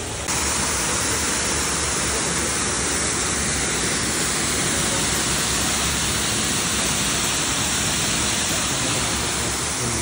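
Waterfall: a steady, loud rush of falling water, which steps up in loudness just after the start and then holds even.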